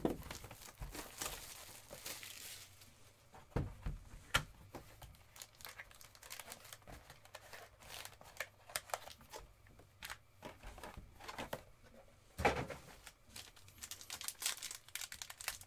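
Trading-card box and pack packaging being handled: rustling and crinkling with many small clicks and scrapes, and one longer, louder rustle about twelve and a half seconds in.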